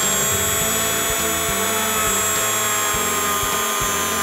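Draper rotary tool running at steady high speed, its wire wheel brushing dirt and rust off the metal wheels of a 00 gauge model locomotive wheel set: a steady high-pitched whine.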